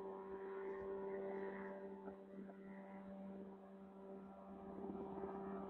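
Homemade single-seat helicopter in flight at a distance: its engine and rotor make a steady, even hum, dipping slightly in level midway and picking up again near the end.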